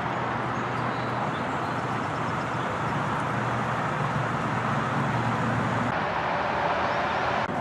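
Steady outdoor background noise, an even hiss-like wash with no distinct events, typical of an open-air market ground.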